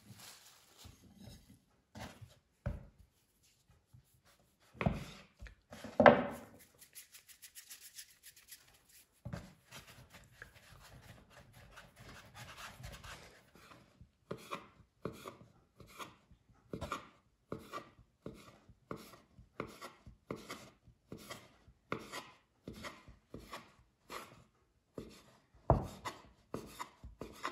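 Kitchen knife cutting a soft dough rope into small pieces on a wooden board, each cut ending in a tap on the board. The cuts come in a steady rhythm of about three every two seconds in the second half, after a few scattered knocks, the loudest about six seconds in.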